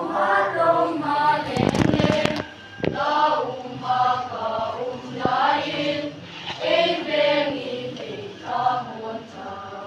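Children's choir singing together, phrase after phrase. A brief clatter of knocks cuts across the singing about two seconds in.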